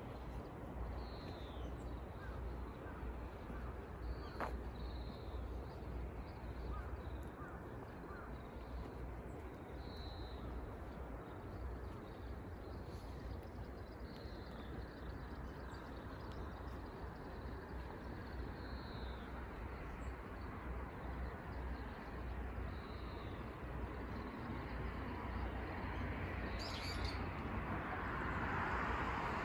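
Small birds giving short, high, downward-sliding chirps every few seconds over a steady low outdoor rumble. A broad rushing noise swells near the end.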